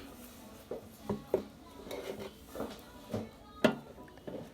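A few light clicks and knocks of small objects, scattered, with the sharpest one about three and a half seconds in.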